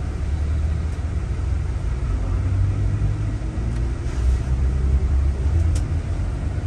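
Low, steady rumble of a vehicle engine, with a faint engine note that rises through the middle as it speeds up.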